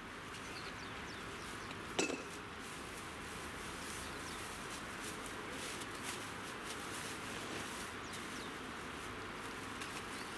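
Steady outdoor hiss with light crackling and rustling of plastic bags being handled and loaded into a minivan's cargo area, and one sharp clink about two seconds in.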